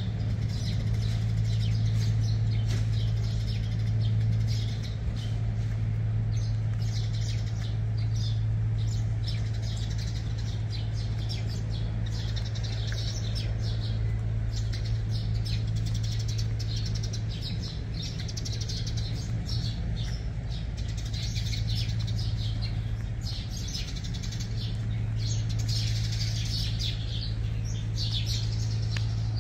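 Small birds chirping over and over, over a steady low hum that is the loudest sound.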